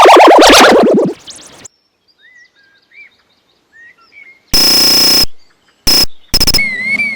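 Edited sound-effect collage. Very loud distorted music cuts off about a second in. A few faint chirps follow in near quiet. Then comes a loud, harsh steady electronic beep with two short repeats, and a warbling whistle-like tone starts near the end.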